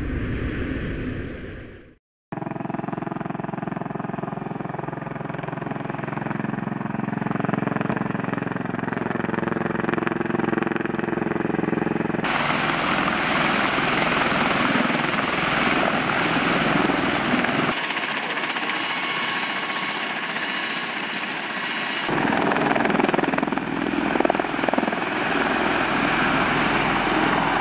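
MV-22 Osprey tiltrotor running at close range: its two turboshaft engines and proprotors give a steady hum with several pitched tones, changing about twelve seconds in to a louder, denser rush of rotor wash. A short intro whoosh cuts off about two seconds in.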